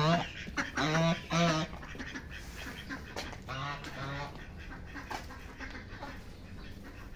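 Domestic ducks quacking: two loud quacks about a second in, then a few fainter ones around four seconds in.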